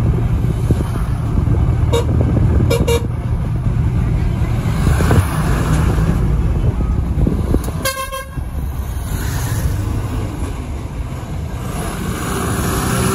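Road vehicle running with a steady low rumble, and vehicle horns tooting briefly: once about two seconds in, twice just before three seconds, and once more, louder, about eight seconds in.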